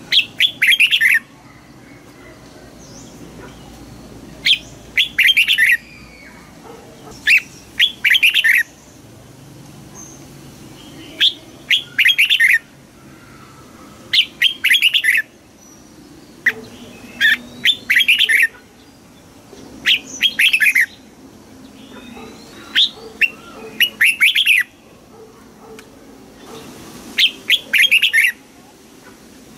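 Red-whiskered bulbul singing its competitive song: short, loud, bright phrases of about a second, repeated every two to three seconds.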